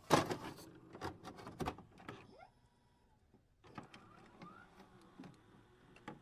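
Scattered sharp clicks and knocks, several close together in the first two seconds and a few more spread out after a short pause, with a brief falling squeak and a brief rising squeak among them.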